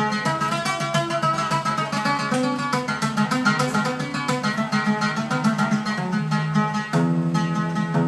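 Oud playing a solo instrumental passage between sung lines: quick runs of plucked notes, settling into a slower, lower phrase about seven seconds in.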